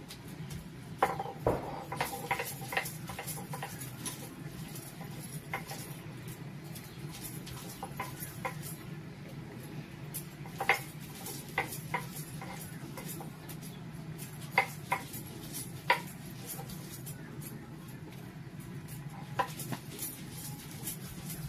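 Spices being ground by hand on a sil batta, a stone rolled and pressed over a flat grinding stone: soft scraping with irregular sharp stone-on-stone knocks.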